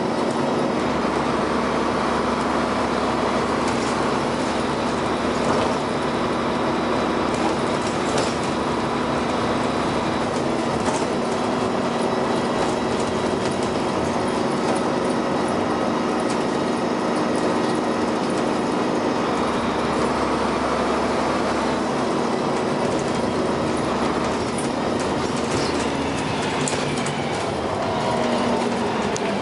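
Dennis Arrow double-decker bus under way, its engine and driveline running steadily with scattered clatters and knocks, and a shift in the engine note near the end.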